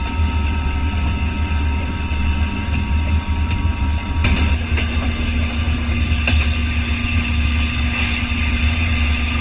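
Steady low rumble of a moving vehicle. A faint high tone stops about four seconds in, just as a lower steady hum begins, with a few faint clicks.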